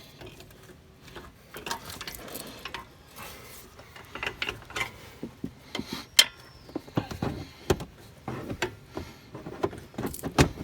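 Metal clinks and knocks of a steel bolt being wiggled and pushed through the eye of a front shock absorber into its lower mount, with irregular taps and a few sharper knocks, the loudest about six seconds in and near the end.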